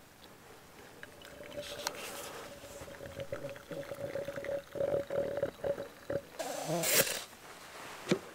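Plunger coffee press being pushed down by hand into a mug: a steady squeal that breaks into short pulses near the end of the stroke, then a loud hiss of air forced through the grounds as the plunger bottoms out, and a click a second later.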